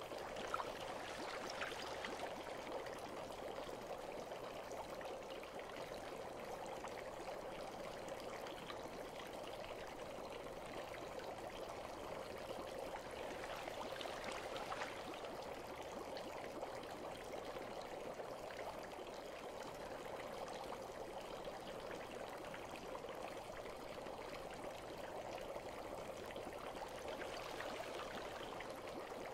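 Bath water trickling steadily, a soft even wash of water with a few faint splashes.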